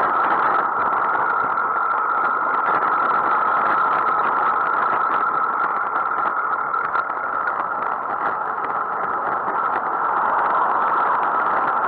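Steady road and traffic noise picked up by a bicycle-mounted camera riding close behind cars on a town road.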